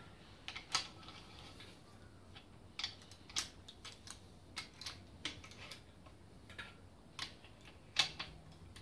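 Speed brace and socket spinning down the main bearing cap bolts on a bare V8 block: a dozen or so sharp, irregular metal clicks and ticks.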